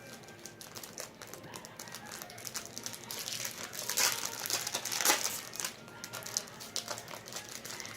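Foil trading card pack wrappers crinkling as packs are opened and handled by hand, an irregular crackle that is loudest about four to five seconds in.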